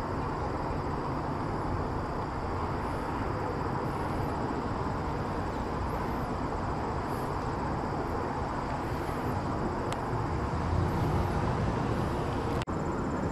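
Steady low rumble of distant trains and road traffic along a busy rail line, growing a little louder near the end, with an instant's dropout just before the end.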